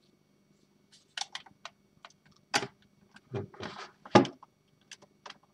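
Handling noise on a tabletop: a few light clicks, a sharp knock a little over two seconds in, a short scraping rustle, then a louder knock about four seconds in.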